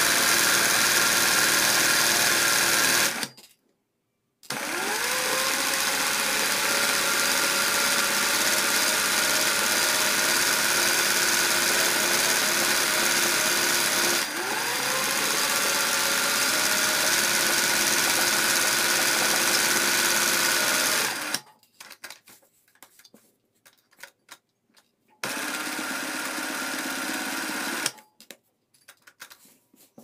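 Industrial sewing machine stitching at speed for free-motion satin-stitch embroidery, stopping and starting several times. About four seconds in, its motor winds up again with a rising whine, and it does so once more about halfway. It stops about two-thirds through, with only faint clicks and one short burst of stitching after that.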